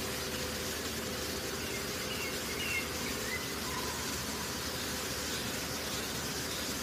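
Steady, even background hiss with a faint low hum, and a few faint high chirps about two to three seconds in.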